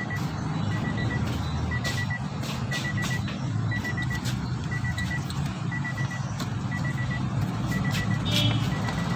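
An electronic beeper sounding a short high beep about once a second, over a steady low rumble, with scattered clicks throughout.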